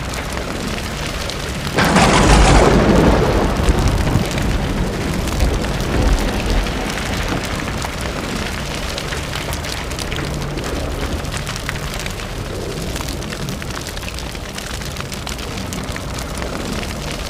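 Logo-reveal sound effect: a loud crash-like burst about two seconds in, then a long crackling, rumbling noise with a low hum under it.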